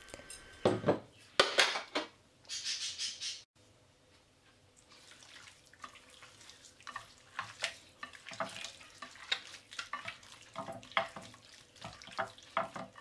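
Hand squishing and turning raw lamb fillets in an oily olive-oil and balsamic marinade: wet squelches and small slaps. A few short sounds come near the start, then a short pause, then a quick run of squelches from about five seconds in.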